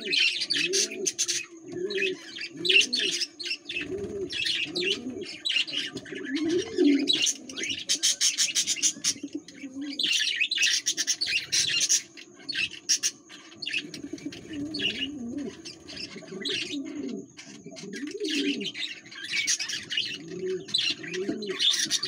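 Budgerigars chirping and chattering in quick high bursts, over a low rising-and-falling call repeated about once a second.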